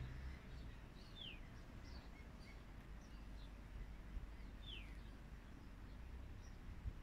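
Faint birdsong: small birds chirping, with two clearer downward-sliding calls, one about a second in and another near five seconds, over a low background rumble.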